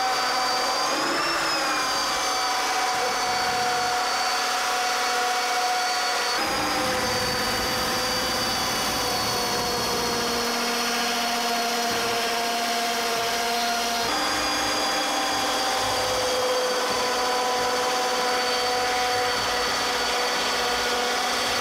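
Ryobi cordless drill running steadily at speed with an even whine, spinning a 3D-printed gear pump submerged in a bathtub as it pumps water. The tone and the background noise change abruptly twice, about 6 and 14 seconds in.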